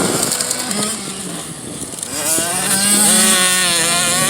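Youth two-stroke motocross bike engines racing on the track. One bike fades a little, then revs up with a sharply rising pitch about halfway through and holds at high revs.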